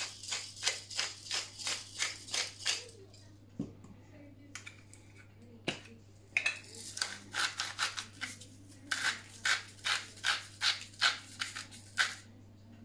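Salt and pepper mills being twisted by hand over a bowl, grinding in quick crunchy strokes about three a second. There are two runs, one at the start and a longer one from about halfway, with a few odd clicks between them.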